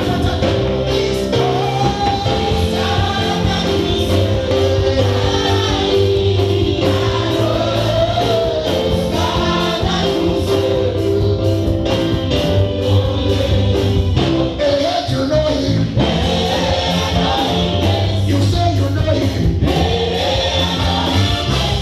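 Gospel music: several voices singing together over a steady bass line and a regular beat.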